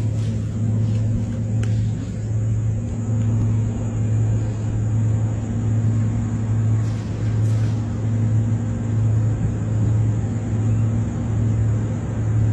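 A steady low hum over a rumbling noise, unchanging throughout.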